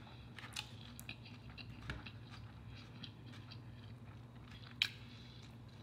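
Quiet close-up chewing of fried fish, with a few soft mouth clicks, the sharpest a little before the end, over a faint steady hum.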